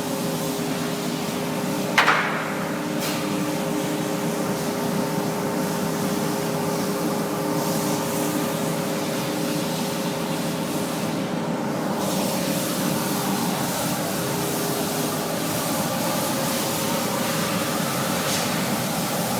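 Steady hum and hiss of running CNC machinery, with a sharp knock about two seconds in and a lighter one about a second later.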